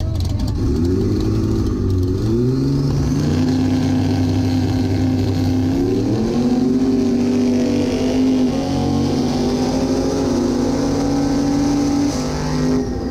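Turbocharged Torino straight-six drag-racing engine heard from inside the cabin. It revs up and down on the start line, jumps to a high, steady pitch at launch about six seconds in and holds it under full throttle down the eighth-mile. The pitch drops about a second before the end as the driver lifts off past the finish.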